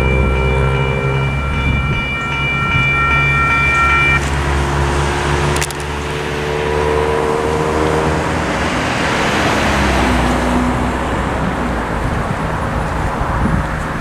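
Western Cullen Hayes Type 3 electronic crossing bell ringing steadily over the low drone of diesel locomotives, then cutting off about four seconds in as the crossing signal shuts off after the train has cleared. Later a car drives through the crossing.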